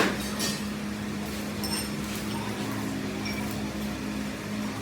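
Workshop metalwork sounds: a sharp metallic knock at the start, then a light metal clink with a brief high ring about two seconds in, over a steady electrical hum.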